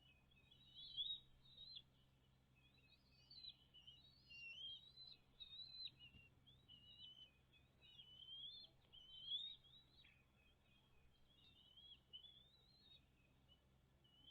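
Birds chirping and twittering faintly and without pause, a string of short high notes, with louder calls about a second in and again around nine seconds in.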